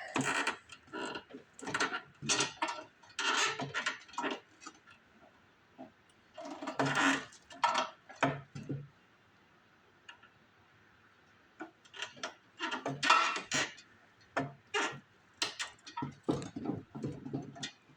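Metal hand tools clinking and clattering in short irregular clusters while a snow blower's hardened fuel line is worked on, with a quiet spell of a couple of seconds about halfway through.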